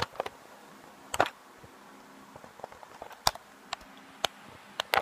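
Handling noise of a phone being moved about: scattered sharp clicks and knocks, about eight of them, over a faint steady hiss.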